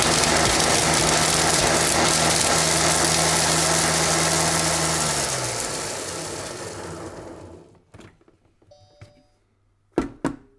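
A Monsieur Cuisine Connect food processor on its turbo setting grinding chunks of Parmesan at full speed: a loud grinding whir over the motor's hum. It cuts out about five seconds in and the blade spins down over about two seconds. Near the end there is a faint short tone, then a knock as the lid is handled.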